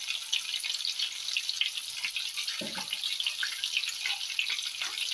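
Breaded pork schnitzels shallow-frying in oil in a pan: a steady sizzle with fine crackles from the bubbling fat.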